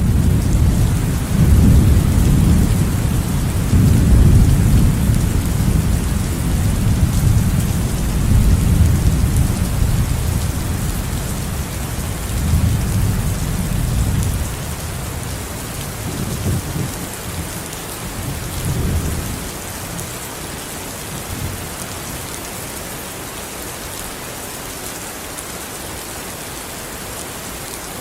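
Thunderstorm: steady heavy rain with rolling thunder. Deep rumbles of thunder swell and ebb through the first half and die away after about fourteen seconds, leaving the steady hiss of the rain with only faint rumbles.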